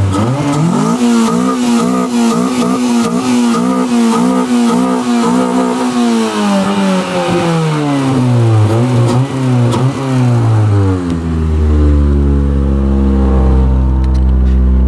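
Honda B16A DOHC VTEC four-cylinder running through dual Magnaflow mufflers. It is revved up about a second in and held high with a wavering pitch, then falls slowly back to a steady idle about eleven seconds in.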